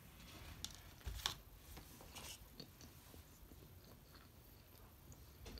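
Faint chewing of a mouthful of plant-based cheeseburger, with a few soft mouth clicks.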